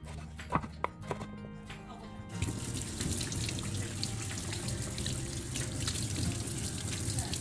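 A few sharp knocks of a kitchen knife cutting potato on a wooden chopping board. From about two and a half seconds in, a tap runs steadily into a stainless-steel sink while hands rinse a piece of raw pork under the stream.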